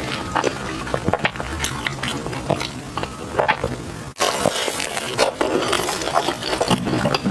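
Close-miked chewing of sticky glutinous rice food, with irregular clicks and smacks of the mouth. The sound cuts out sharply for a moment a little past halfway, then resumes.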